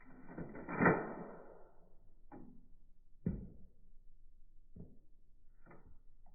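Toy Glock 18 pistol being worked: one loud shot-like report about a second in, with a tail that fades over about a second, followed by four sharp mechanical clicks.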